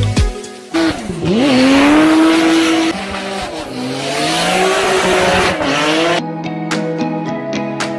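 Drift car sliding with its tyres squealing and its engine revving up and down under the driver's throttle. Music plays briefly at the start and comes back about six seconds in.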